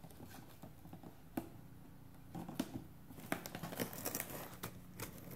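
Scissors cutting and tearing plastic packing tape along the seam of a cardboard box, with the tape crinkling. The sound comes as a scatter of short snips and rips that grow more frequent in the second half.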